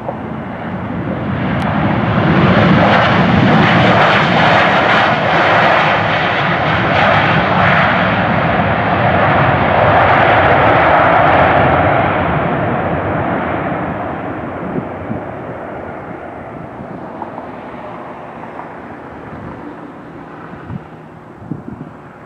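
Southwest Boeing 737 jet engines during landing rollout, with the noise building about two seconds in and staying loud through reverse thrust and braking. It then fades steadily as the jet slows and rolls away down the runway.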